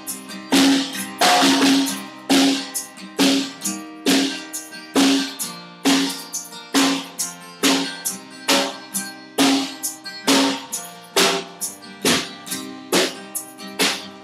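Band music without vocals: strummed guitar and a drum kit playing a steady beat of about two strokes a second.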